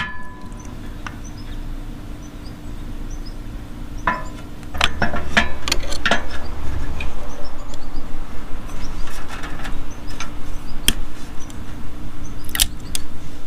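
Sharp knock, then scattered metallic clicks and clanks of hand tools working on a Harley's clutch-side cover, with a low rumble of handling a few seconds in over a steady faint hum.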